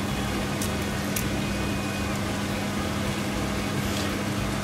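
A steady mechanical hum, like a kitchen fan, with a few faint clicks as canned chopped tomatoes are tipped from the tin into a stainless steel bowl of beans.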